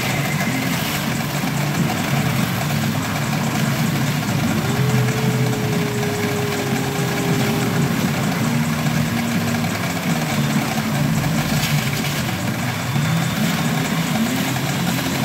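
Steady din of a pachinko parlour, with many machines' sounds blended into a dense noise. A tone slides up about four seconds in and holds for a few seconds.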